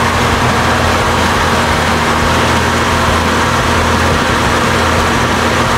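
Porsche 944's four-cylinder engine idling steadily.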